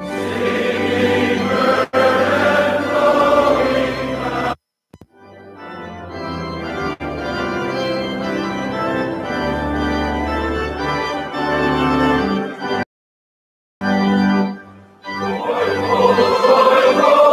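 Organ playing a hymn in slow, sustained chords over held bass notes. The sound cuts out abruptly to silence several times, about four and a half seconds in, for about a second near the thirteenth second, and again briefly near the fifteenth second.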